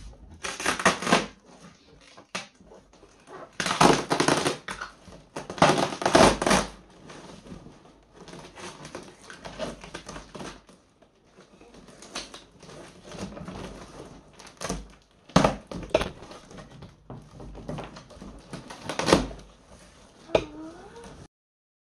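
Packing tape being ripped off a large cardboard box and the cardboard flaps pulled open: several loud tearing rips, the loudest about four and six seconds in, with cardboard rustling and scraping between them; the sound cuts off suddenly near the end.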